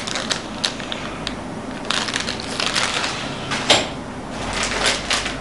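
Packaging crinkling and rustling as items are unpacked by hand, with scattered clicks and taps. The crackling is densest in the middle, with a sharper click just before the end.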